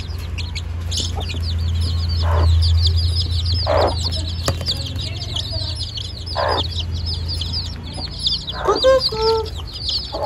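Young chicks peeping continuously in rapid, high chirps, with a mother hen giving a few short clucks and a longer call near the end. A steady low hum runs underneath.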